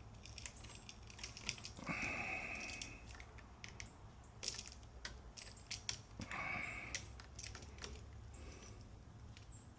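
Faint small clicks and scrapes of wire and tools being handled while the end of a copper wire is bent into a hook for a switch's screw terminal. There are two brief scraping stretches, about two seconds in and again past six seconds.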